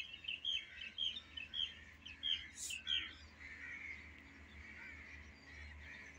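Birds chirping: many short, quick calls, busiest for the first three seconds, then sparser and fainter.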